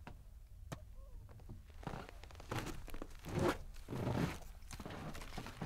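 Footsteps in snowshoes crunching through snow, a handful of steps in the second half, after a faint click.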